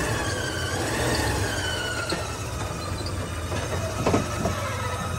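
1973 Ford F100 pickup's engine running low and steady, with a high squeal sliding slowly down in pitch over it and a short knock about four seconds in.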